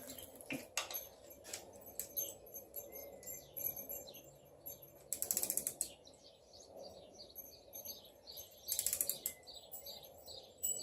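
Ratcheting torque wrench clicking in two short rapid bursts, about five seconds in and again near nine seconds, as bolts are run down to 25 ft-lb of torque. Faint high chirps sound between the bursts.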